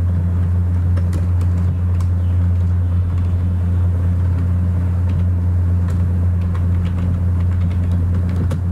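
A loud, steady low hum, with scattered light key clicks from typing on a computer keyboard.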